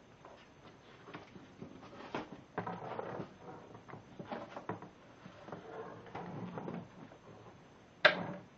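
Handling noise from a plastic tool-kit case and its contents being shifted about: scattered knocks, scrapes and rattles, with one sharp knock near the end.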